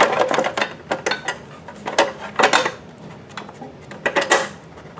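Hard plastic battery cover of a Pride Jazzy Air power chair being pushed down and seated over the battery casing: a series of irregular plastic knocks and clicks with handling scrapes between, the strongest near the start, about two seconds in and near the end.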